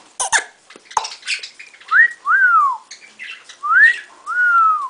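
Brief scratchy budgie chatter, then two wolf whistles, each a quick rising note followed by a longer falling one.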